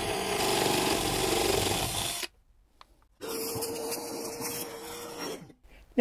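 Cordless drill boring a 20 mm hole through a timber cabinet panel, a rough grinding of bit in wood for about two seconds. After a short break comes a second stretch of drilling, with a steady motor whine under the cutting noise.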